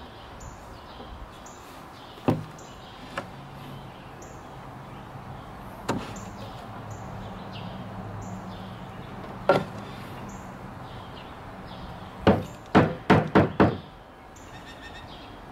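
Hammer tapping a wooden drawer front through a cloth to seat it back onto its nails. A few separate knocks are followed by a quick run of five strikes near the end.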